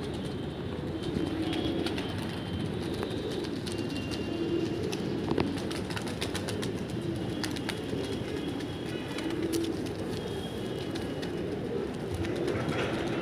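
Large flock of domestic high-flyer pigeons cooing together in a steady, overlapping murmur, with scattered sharp claps of wings as birds take off and land.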